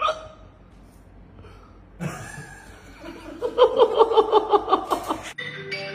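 A man laughing heartily in quick repeated bursts. The laughter builds about two seconds in and cuts off suddenly near the end, where a few music notes begin. A sharp click sounds right at the start.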